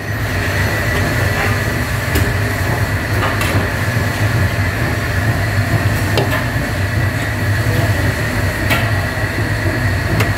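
Steady machine drone with a strong low hum. Over it, a metal ladle clinks sharply against stainless-steel hotel pans a few times as hot meat sauce is spooned onto macaroni.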